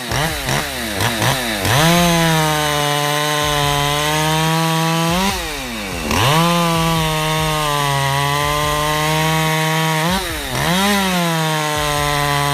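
Poulan Pro PR5020 50cc two-stroke chainsaw. It starts with a few quick throttle blips, then runs at full revs cutting wood. The engine pitch drops briefly and climbs back up around the middle and again near the end.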